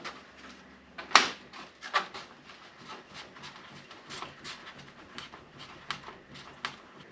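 Spring clamps being fitted onto a window louver on a van's rear door: a string of irregular sharp clicks and taps, the loudest about a second in.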